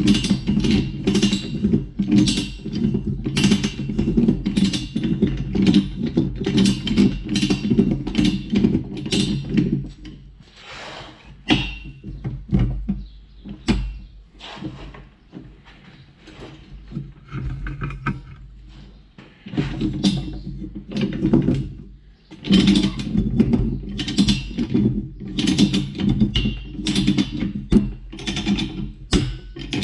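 Background music with a steady beat. About ten seconds in, the music drops away and the separate clicks of a ratchet chain binder being worked under tension come through. The music returns about twenty seconds in.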